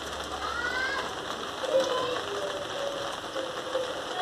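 Cockatiels calling softly: a few faint rising whistles and low held tones over a steady hiss.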